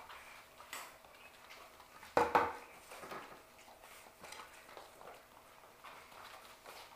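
Sheltie puppies play-wrestling on foam floor mats: soft scattered rustles and light taps, with one short, louder sound about two seconds in.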